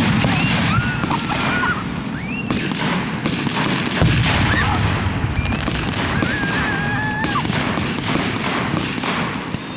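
Aerial fireworks going off in rapid succession: a continuous rumble of booms and crackling bangs. Several high whistles sound over it, one wavering for about a second past the middle.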